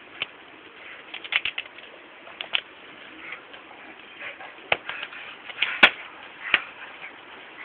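An Irish wolfhound worrying a plush toy: irregular scuffling and scattered sharp clicks, the loudest about six seconds in.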